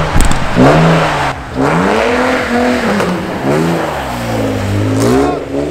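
Car engine revving up and down repeatedly while the car is drifted, with a short dip in the revs about a second and a half in. A brief sharp burst of noise right at the start.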